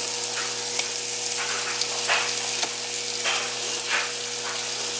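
Cubes of seasoned wahoo searing in butter in a very hot pan: a steady sizzle with occasional pops and spits.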